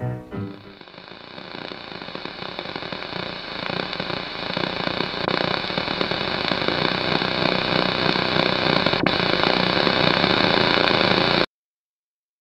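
A harsh, crackling static noise swells steadily louder for about eleven seconds, then cuts off suddenly into silence.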